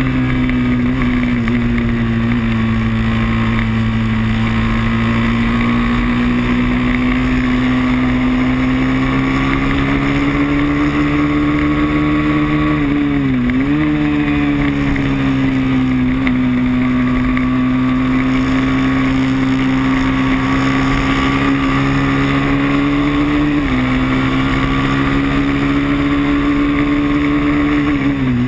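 Moto3 racing motorcycle engine heard onboard, held at high revs under load with a steady pitch that creeps slowly upward. The pitch dips sharply for a moment about halfway through and again at the very end as the throttle is rolled off for corners.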